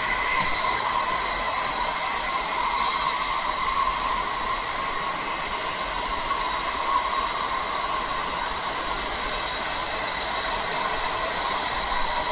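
Running noise heard from inside a WMATA 7000 Series Metro subway car in motion: a steady rumble with a constant whine held at one pitch.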